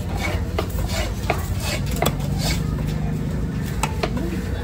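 Irregular knife strokes on a cutting block as a large fish is cut up: sharp knocks and scrapes, a few a second and unevenly spaced, over a steady low background din.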